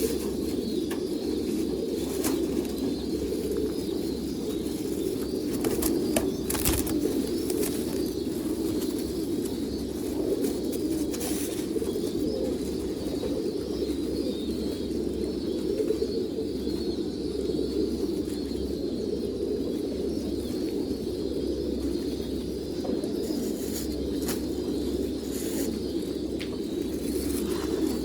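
Many domestic pigeons cooing together in a steady, unbroken chorus, with a few brief sharp clicks partway through.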